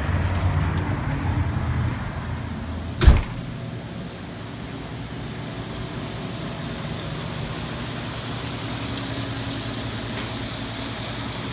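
A door knocks shut about three seconds in. Then there is a steady electric hum with a hiss of bubbling water from the aerator pumps on the bait shop's minnow tanks.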